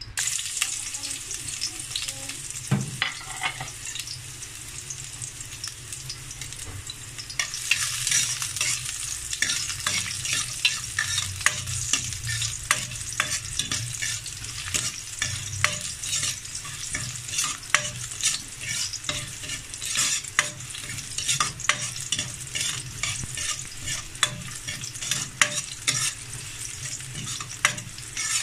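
Chopped garlic frying in oil in a wok: a steady sizzle that grows louder about seven seconds in, with a spatula scraping and clicking against the pan over and over.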